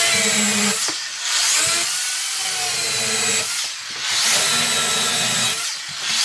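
Corded Makita electric chainsaw cutting into a dry Manitoba maple bowl blank, trimming off its corners. The motor runs loud in three long passes with short dips between them.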